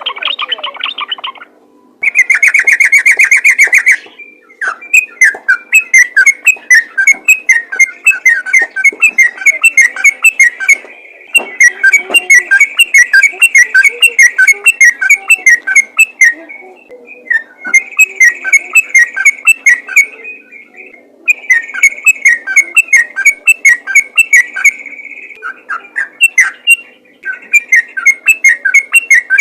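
Yellow-vented bulbul (trucukan) singing its fast, continuous 'ropel' song: long runs of rapid bubbling notes broken by short pauses, opening with a loud rattle about two seconds in.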